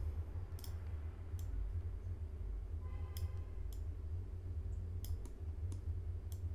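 Irregular sharp clicks of a computer mouse and keyboard in use, about eight of them, over a steady low hum.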